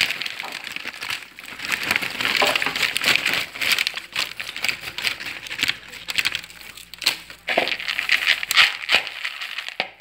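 Popped popcorn tipped out of a crinkling paper bread bag into a bowl, then a hand rummaging through it: a continuous run of rustling, crackling and small clicks that rises and falls in loudness.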